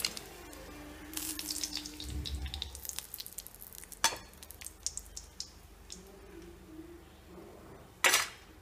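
Chicken pieces frying in hot oil, sizzling with scattered crackles and spits, while a perforated steel skimmer lifts them out. The skimmer gives a sharp knock about four seconds in and a louder clatter near the end.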